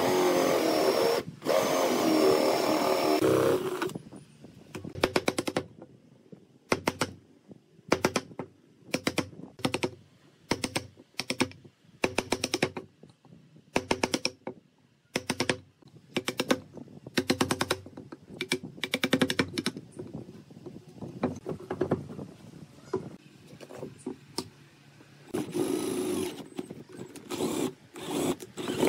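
Cordless drill boring into a pine beam. It runs continuously and loudly for the first few seconds, then in a string of short trigger bursts, then in longer runs again near the end.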